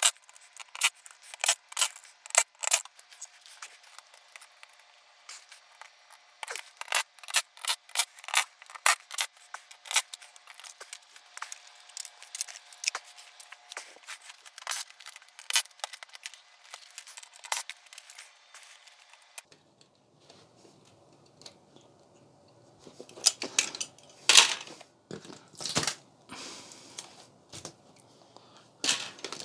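Tools, screws and plastic parts clicking and clinking in quick irregular runs as a flat-screen TV is taken apart for its boards. About 19 seconds in, the sound turns fuller and lower, with a few louder knocks of handling.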